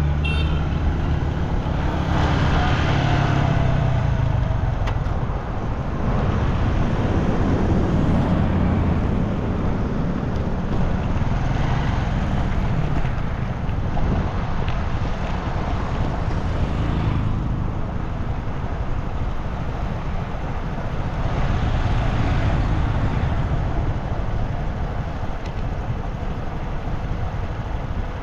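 Motor vehicle on the move: steady engine drone and road noise, the low engine drone loudest in the first several seconds.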